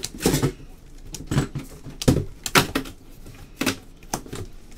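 Trading cards being flipped one by one from a stack by hand, each card snapping against the others with a sharp click; about six irregularly spaced snaps.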